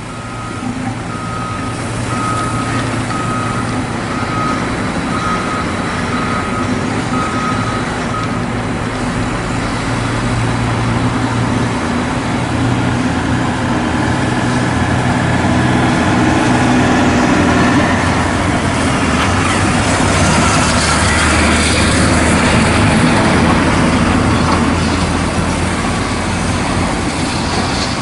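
Scania R580 truck's V8 diesel engine running as the tractor unit creeps through a wash bay, with a high-pressure water jet hissing and splashing against it. A series of electronic beeps, a little more than one a second, sounds until about eight seconds in, and the engine and spray get louder in the second half.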